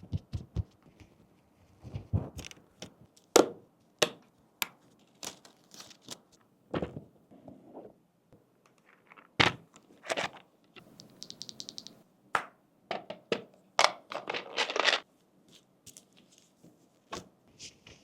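Sharp clicks, taps and knocks of hard keyboard parts being handled and fitted during assembly, at irregular moments. A brief fast rattle comes about eleven seconds in, and a quick run of clicks a few seconds later.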